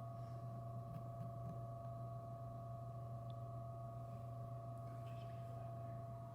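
Steady electrical hum with two steady high-pitched tones over it, all cutting off suddenly at the end.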